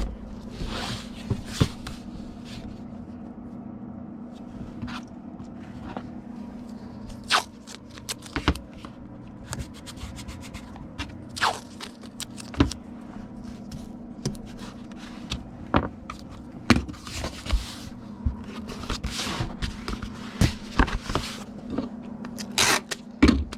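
A comic book being packed into a cardboard Gemini mailer: scattered scrapes, rustles and taps of cardboard and paper being handled, over a steady low hum.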